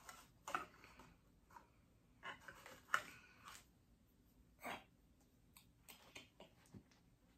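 Faint handling noises of statue pieces being fitted together: scattered light clicks and brief rustles, with a few sharper clicks, the loudest about three seconds in.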